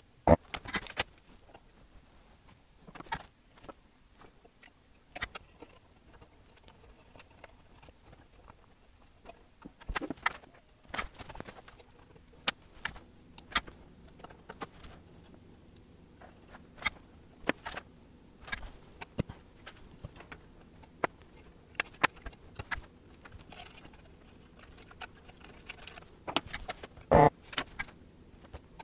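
Scattered light clicks and taps of hand tools and small parts on a metal amplifier chassis as capacitors are desoldered and fitted, with a louder short clatter near the end.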